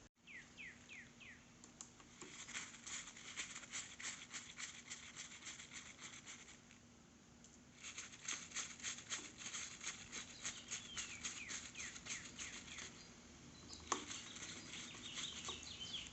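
Rapid, scratchy clicking in two runs of about five seconds each, with a single sharp knock near the end. A few short falling chirps, like a small bird's, sound faintly near the start and again in the middle.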